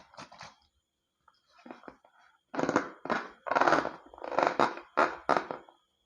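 Crackly, squishy handling sounds of slime and balloons being worked by hand: a run of short bursts, a few soft ones and then several louder ones from about two and a half seconds in.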